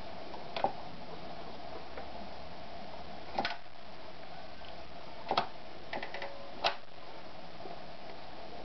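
A handful of separate sharp clicks and knocks, irregularly spaced, over a steady faint hum, as a Privileg TopStar 796 sewing machine is handled between seams rather than sewing.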